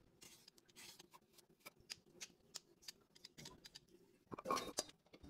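Knife cutting vegetables on a wooden chopping board: a run of faint, crisp cuts, irregular at about three or four a second, with a louder scraping rustle near the end.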